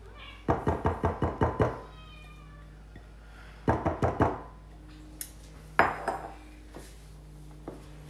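A silicone spatula knocked against glass mixing bowls to shake off beaten egg whites. A quick run of about seven knocks comes half a second in, four more follow a little past the middle, then one single knock with a faint glassy ring.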